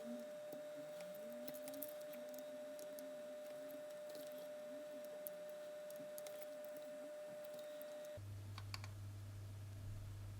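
Faint small clicks and taps of tools working on a circuit board while an electrolytic capacitor is desoldered, over a steady high electrical whine that gives way to a low hum about eight seconds in.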